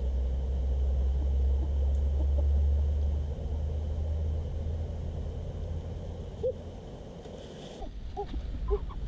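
Low wind rumble on the microphone, strongest in the first three seconds. Near the end a chicken clucks softly several times.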